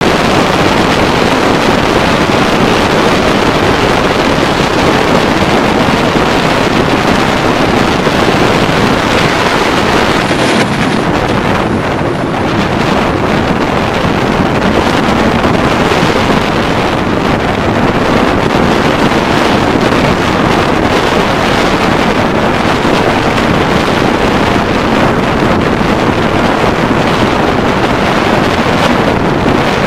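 Strong wind of 15 to 25 knots buffeting the microphone in a steady, loud rumble and hiss, with choppy water splashing.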